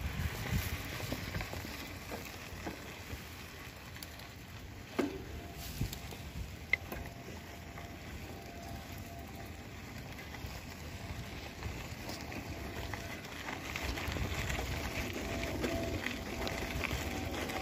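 Mountain bike rolling over a rough dirt and gravel trail: steady tyre noise and bike rattle, with a few sharp knocks about five to seven seconds in.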